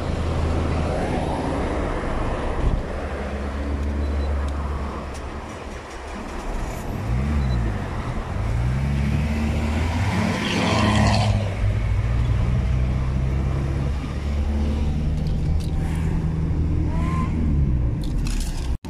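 Renault car's engine running with road and traffic noise heard from inside the cabin as it moves slowly through traffic. The engine note dips and rises about a third of the way in as the speed changes.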